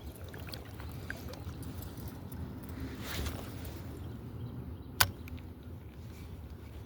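A spinning rod cast: a short swish about three seconds in, then a single sharp click about five seconds in, like a reel's bail snapping shut. Under it runs a steady low rumble of river water and wind.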